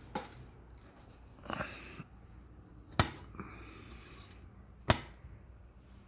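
A few sharp knocks or clicks, as of hard objects being handled or set down, with two louder ones about three and five seconds in.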